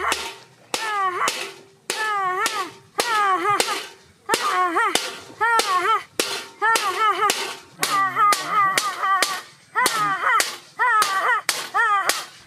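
A metal vessel struck over and over with a stick, about two strikes a second, each strike ringing with a wavering pitch. The banging is meant to scare birds away from a fish pond.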